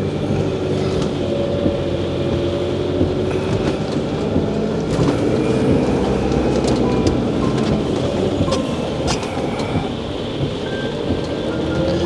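Motorhome engine running at low speed with road noise, heard from inside the cab, its note drifting up and down slightly as it drives slowly. Rain is falling on the windscreen.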